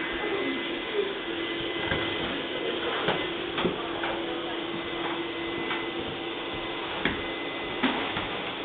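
A small machine runs with a steady hum and a held low tone that stops near the end. Scattered clicks and knocks occur over it.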